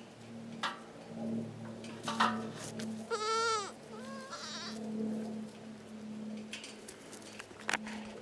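A goat bleats once, a loud quavering call about three seconds in, followed by a shorter, fainter bleat. A few sharp clicks and knocks come before and after.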